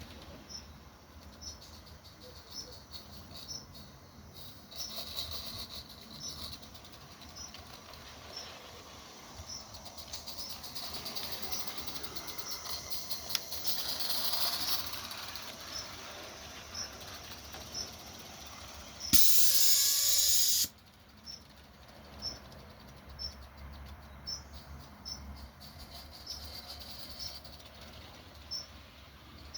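Gauge 3 model locomotive running on the garden track: a steady hiss with faint regular ticks, swelling louder for a few seconds in the middle. A loud blast of hiss lasts about a second and a half, two-thirds of the way through.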